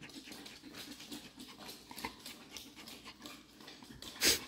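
Pet dogs moving about close to the microphone, with a scatter of small clicks and patters, and one short, sharp, louder noise near the end.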